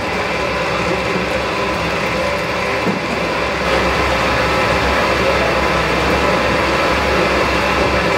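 Motor-driven clay mixer running steadily, its paddle churning wet clay inside the metal drum with a continuous mechanical hum and grind.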